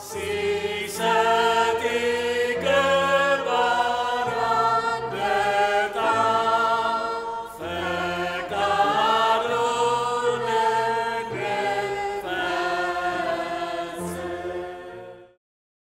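Choir singing a liturgical chant in long held notes, one phrase after another; the singing cuts off suddenly near the end.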